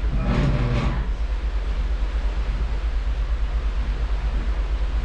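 Steady low rumble of a moving cruise ship heard at its stern, with a quickly fluttering loudness. A brief pitched sound comes about half a second in.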